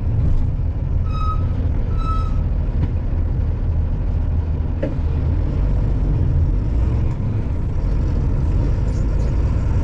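Heavy container truck's diesel engine running as the truck rolls slowly, a steady low rumble. Two short high beeps come about a second in and again a second later.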